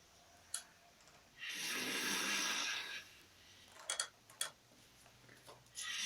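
A sleeping man snoring: one long, raspy snore about a second and a half in and the next one starting near the end, with quiet breathing and a few short clicks in between.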